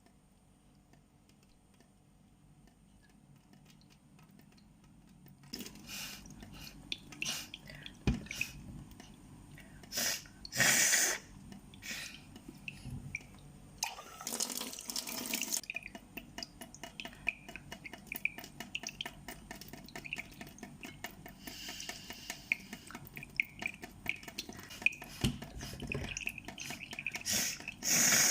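Water splashing and dripping into a sink in irregular bursts, starting about five seconds in.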